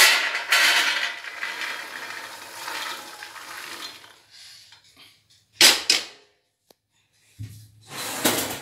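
Dry-roasted peanuts poured from a steel kadhai onto a steel plate: a dense rattling clatter of nuts on metal that thins out over about four seconds. A single sharp metal clank follows a little over five seconds in, and a duller knock near the end.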